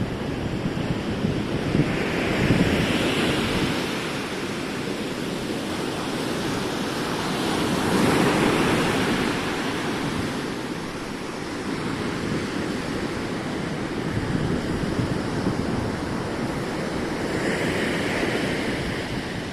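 Ocean surf breaking on a beach, a steady wash rising in swells every few seconds as waves come in, with wind buffeting the microphone.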